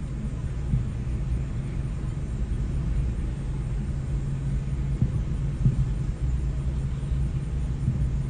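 Steady low hum of a car's engine heard from inside the cabin, with a few faint dull thumps of distant fireworks about five to six seconds in.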